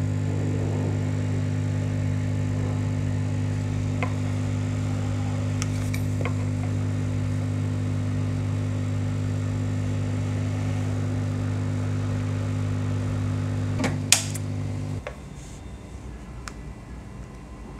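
Steady low electrical hum from a mains-powered machine. A sharp click comes about fourteen seconds in, and the hum stops a moment later, as if the machine were switched off.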